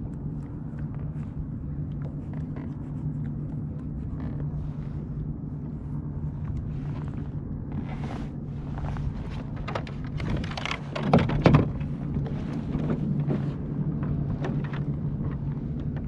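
Irregular knocks and clicks of fishing gear handled on a plastic kayak, with a cluster of louder knocks about eleven seconds in, over a steady low hum.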